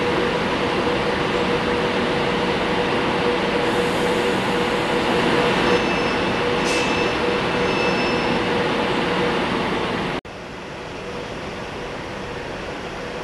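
Avanti West Coast Class 390 Pendolino electric train pulling slowly into the platform: a steady hum with a constant mid-pitched tone, and a few brief high tones about six to eight seconds in. About ten seconds in the sound cuts abruptly to a quieter steady hum from another Pendolino.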